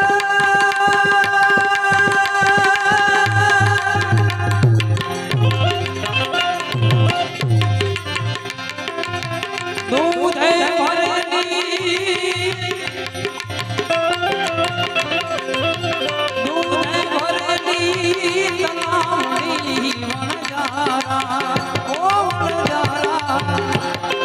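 Instrumental break in Gujarati folk music: tabla keeps a rhythm under held melody notes, and about ten seconds in a wavering, bending melody line comes in over the drumming.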